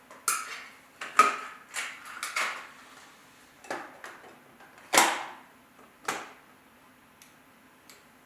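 A series of about seven sharp knocks and clicks, irregularly spaced, the loudest about five seconds in, then stopping, over a faint steady hum.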